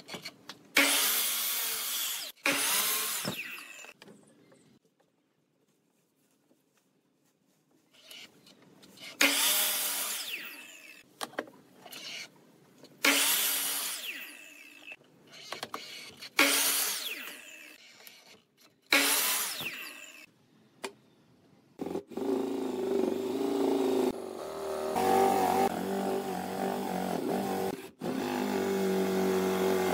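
A sliding compound mitre saw spinning up and cutting through pine in about six separate short cuts, with a quiet pause of a few seconds after the first two. In the last third, a cordless drill runs steadily, boring into the end grain of a pine stick.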